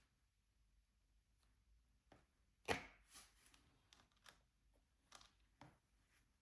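Scattered light taps and clicks of diamond painting: a drill pen picking up drills and pressing them onto the canvas, the sharpest tap about two and a half seconds in.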